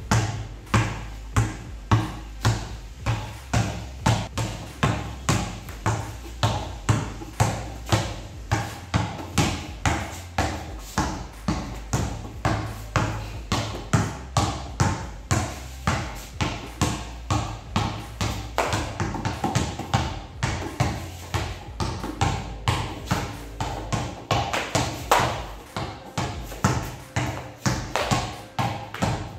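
A basketball dribbled on a stone tile floor, bouncing steadily at about two bounces a second.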